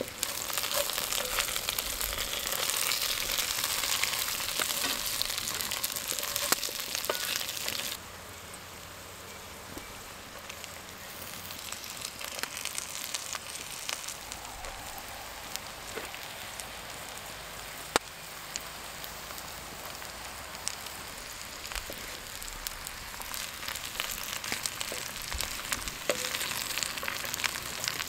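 Potatoes and onions sizzling in a pot over a campfire, a dense hiss with scattered pops. It is loud at first, drops suddenly about eight seconds in, and builds up again toward the end.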